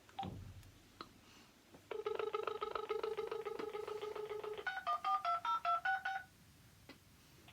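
Uniden XDECT cordless phone on a call: a steady dial tone for about three seconds, then a quick run of about ten touch-tone (DTMF) beeps as the number is dialled.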